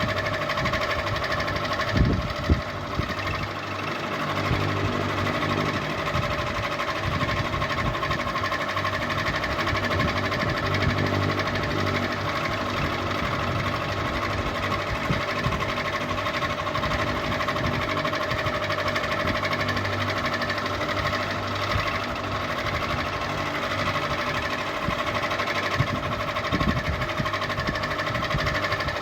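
Ceiling fan running steadily: a constant electric motor hum with a fast mechanical rattle, and a couple of sharper knocks about two seconds in.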